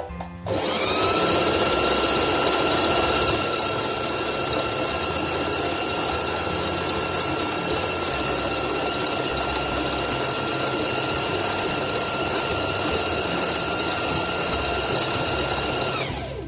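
Singer 4432 heavy-duty sewing machine running at a steady high speed while free-motion quilting with a darning foot and the feed dogs lowered: a motor whine that rises about half a second in, holds steady, and winds down near the end.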